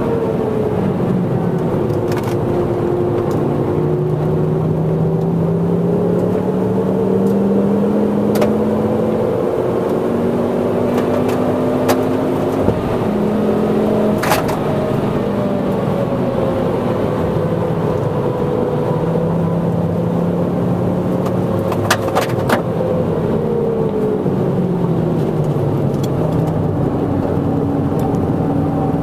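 Mk2 Ford Focus ST's turbocharged five-cylinder engine heard from inside the cabin while driven hard on a circuit, its pitch climbing, stepping and falling over and over with throttle and gear changes. A few sharp knocks sound over it.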